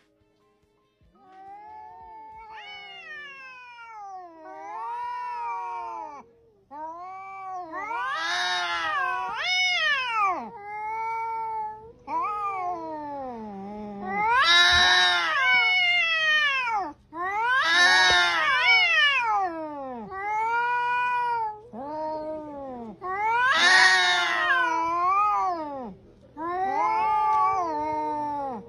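Cats yowling and caterwauling in an aggressive face-off: long drawn-out wails that slide up and down in pitch, one after another with short breaks, growing louder after the first few seconds.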